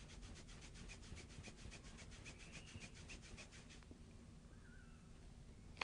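Fingers rubbing quickly back and forth over kinesiology tape on skin to activate its adhesive: a faint, rapid, even scratching that stops about four seconds in. A single short click near the end.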